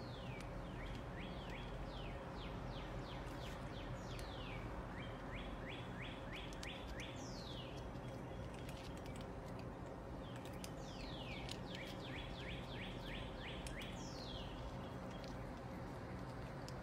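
A songbird singing in repeated phrases: a clear whistled note sliding down in pitch, then a quick run of short notes, over a steady background hiss.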